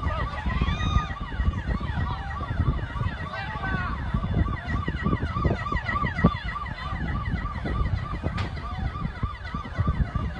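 Several emergency-vehicle sirens sounding at once: one repeats a quick rising-and-falling note about three times a second while others sweep over it, above a constant low rumble.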